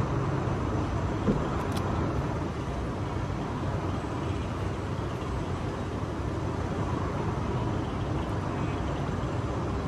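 Steady outdoor background noise: an even rush with a low hum underneath and no distinct events.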